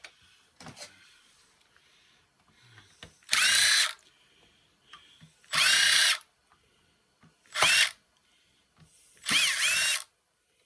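Power drill run in four short bursts about two seconds apart, the motor whining up in pitch at the start of each burst.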